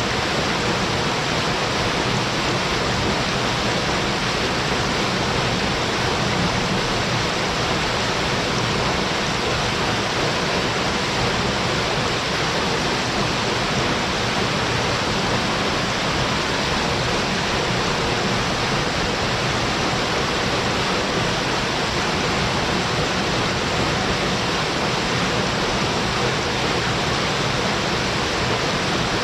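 A low but forceful waterfall pouring into its plunge pool: a steady, even rush of falling water.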